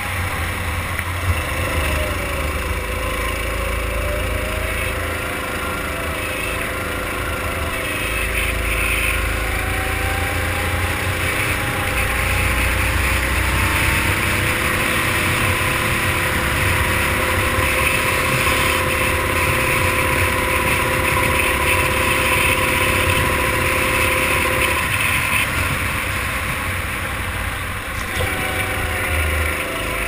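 Racing kart engine at full power on a lap, heard from on board. Its pitch climbs steadily along a straight, drops sharply about 25 seconds in as the kart slows for a corner, then rises again.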